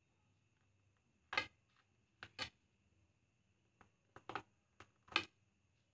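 Table knife clicking against a ceramic plate as it cuts down through a soft sponge cake: about eight short, sharp clicks, the loudest about a second and a half in and near the end.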